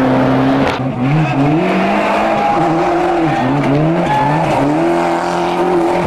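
Rally car engine revving hard at speed, its pitch climbing and dropping over and over as it shifts gears and lifts between corners.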